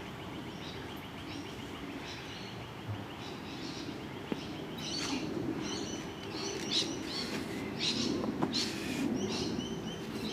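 Birds chirping and calling: many short, high calls overlapping, with a rapid trill in the first few seconds, over a steady low background noise.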